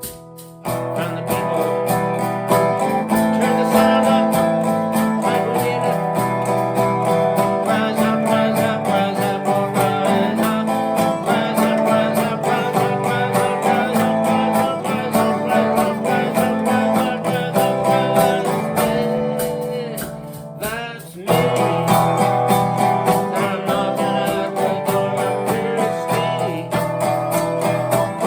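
Guitar-led music, mostly acoustic guitar. It thins out and fades about two-thirds of the way through, then comes back in sharply.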